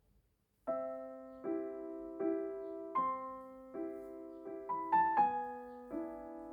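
Background music: a slow piano melody of single notes and chords, starting about a second in after a moment of near silence.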